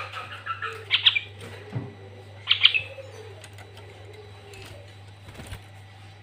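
Sooty-headed bulbul singing: two short, loud chirping phrases, about a second in and again about two and a half seconds in, with a few fainter notes between them. A steady low hum runs underneath.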